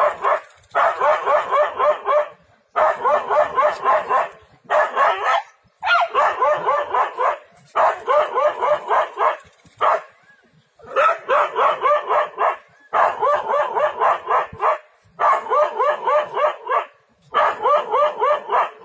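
A dog barking rapidly and shrilly at a leopard, in bouts of one to two seconds with short pauses between and a longer pause about ten seconds in.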